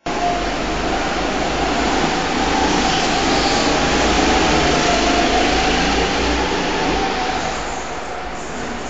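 Go-kart engines running on an indoor track: a loud, steady drone with one wavering engine note, easing off a little near the end.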